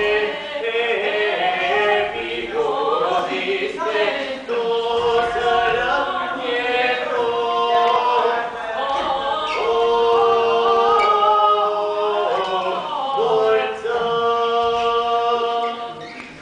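Several voices singing unaccompanied in harmony, a slow choral chant of long held notes that move from chord to chord, fading out near the end.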